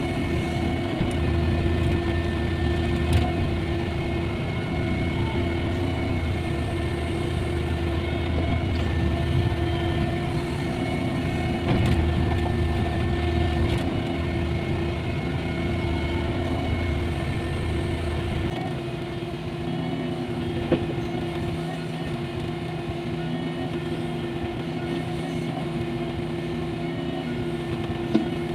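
Cat 305.5E mini excavator running as it digs and loads soil: a steady engine note with a constant whine over a deep rumble, and the rumble drops away about two-thirds of the way through. A few short sharp knocks are heard.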